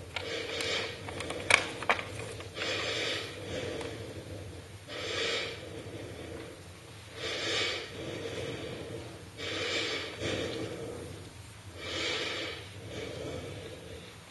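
A person breathing heavily in a slow, even rhythm, one loud breath about every two and a half seconds. Two sharp clicks come about a second and a half and two seconds in.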